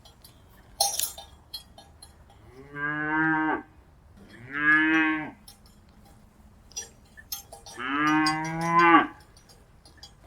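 Cattle mooing: three separate moos, each about a second long, the last the longest. Scattered light clinks and a sharp clank about a second in.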